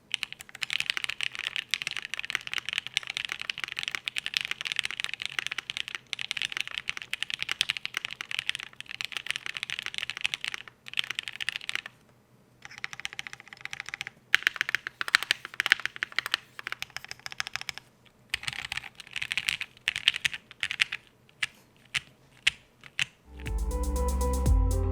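Typing on a custom IDB60 mechanical keyboard with plateless, PCB-mounted Mauves linear switches, lubed and filmed, in a polyfill-insulated case. The keystrokes come in dense runs with short pauses, growing sparser later on. Electronic music starts near the end.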